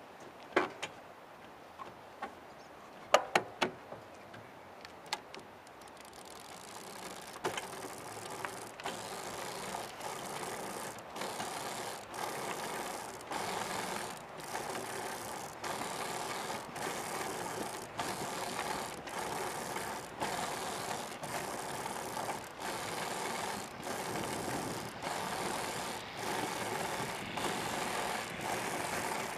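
Hand-powered tadpole trike running on a tarmac path: a few sharp clicks from the frame and drive at first, then a rolling, mechanical running noise that builds after about six seconds as the trike gets going. It pulses in a steady rhythm, a little faster than once a second.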